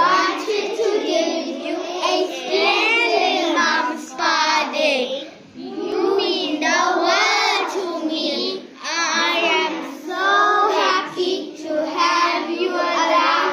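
Young schoolboys singing a thank-you song together to their mothers, with lines such as "We wanted to give a splendid…" and "I'm so happy to have you in a school today."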